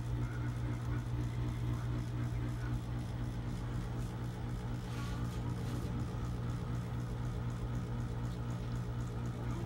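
A steady low hum at an even level.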